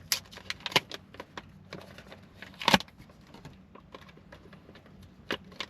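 Scattered light plastic clicks and rattles of handling as a GoPro is fitted into its mount, with one sharper click about two and a half seconds in and a few more near the end.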